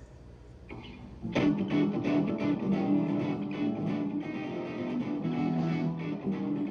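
Guitar music with strummed chords, starting suddenly about a second and a half in and carrying on steadily.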